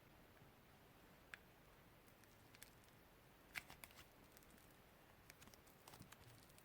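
Near silence with a few faint, sharp clicks and taps from slime-making materials being handled, the clearest about halfway through.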